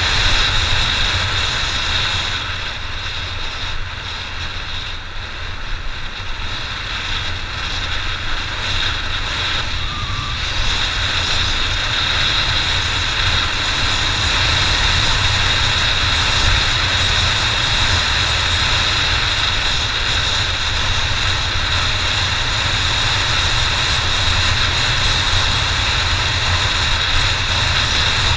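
Honda XR 600 air-cooled single-cylinder four-stroke engine running under way on a trail ride. It eases off for a few seconds early in the stretch, then holds a steady, louder note.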